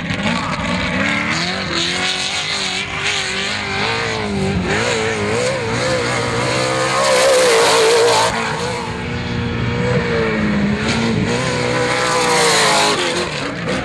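Trophy truck's V8 engine revving hard around a dirt course, its pitch rising and falling again and again with the throttle through the turns. It is loudest about seven seconds in and again near the end as the truck passes close.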